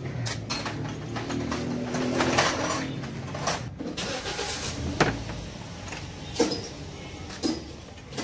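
Workshop sounds: a vehicle engine running with a steady low hum for the first few seconds, then a few sharp knocks of tools on metal, about a second apart.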